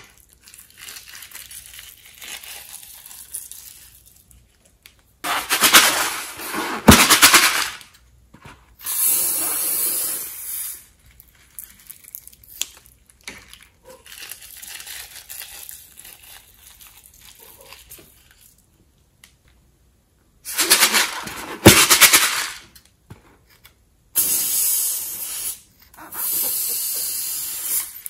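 Slime being squeezed out of cut balloons into a bowl of slime, coming out in hissing, spluttering bursts of a second or two, with a sharp click inside two of the bursts and soft rustling between them.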